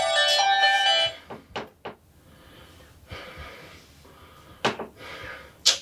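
Background music with chiming mallet-percussion notes stops about a second in, leaving a quiet room with a few short sharp clicks.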